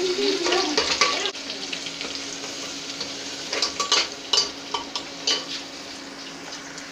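Chopped onion hitting hot oil in a pressure cooker and sizzling steadily. About halfway through, a slotted metal spoon stirs it, clinking several times against the side of the cooker.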